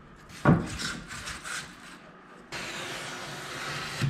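Rigid foam board being handled: a knock as one foam piece is set down about half a second in, then a steady rubbing hiss for about a second and a half as the foam template slides across the foam sheet.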